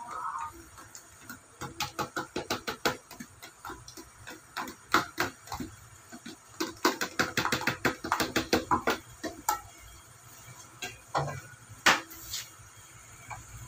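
A metal ladle stirring frying garlic in an aluminium pot. It knocks and scrapes against the pot in runs of quick, even clicks, with a few single louder knocks near the end.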